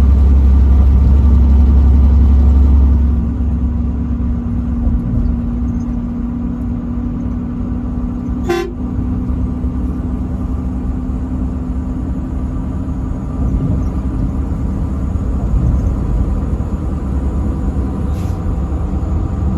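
Truck driving at speed, its engine and tyres making a steady drone; a heavy low rumble drops away about three seconds in. About eight and a half seconds in there is one brief horn toot.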